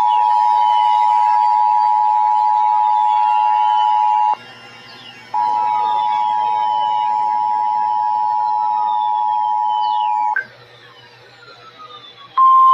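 Emergency Alert System two-tone attention signal from a NOAA Weather Radio broadcast: a steady dual-tone buzz that breaks off for about a second after four seconds, resumes for about five seconds, then drops out. Near the end the single-pitch NOAA weather radio warning alarm tone starts, which signals that a warning follows.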